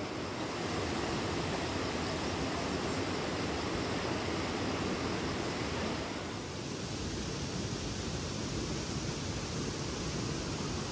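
Waterfall: water pouring and splashing in a steady, dense rush, dipping slightly in level about six seconds in.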